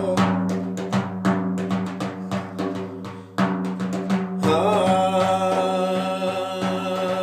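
Hand-struck frame drum beating a steady rhythm over sustained instrumental accompaniment in a folk song interlude. A fuller melody line comes in about four and a half seconds in.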